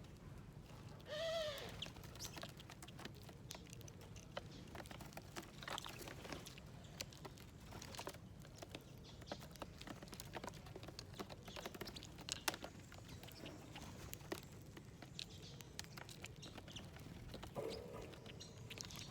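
Wild birds feeding at a seed plate: scattered small ticks and taps of pecking at seeds, with one short arching call about a second in and a brief rough call near the end, over a steady low background rumble.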